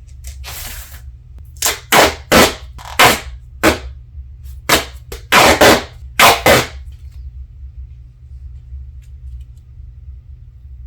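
Duct tape being pulled off the roll in a run of short, loud rips, about nine in five seconds, after one softer, longer pull near the start.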